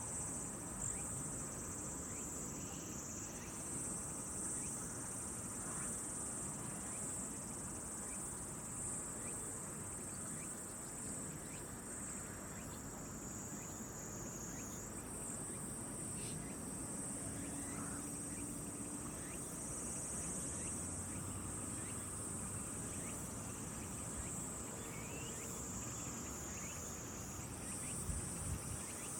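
A chorus of singing insects: a continuous high, shrill trilling that holds steady and shifts slightly in pitch a few times, over a faint outdoor background.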